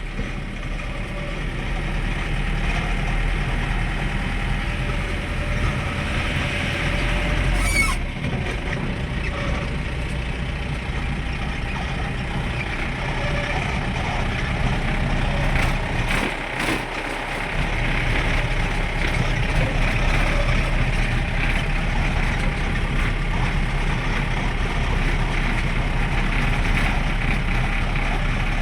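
Steady engine hum and road noise of a moving vehicle, heard from on board. The low hum dips briefly a little past halfway.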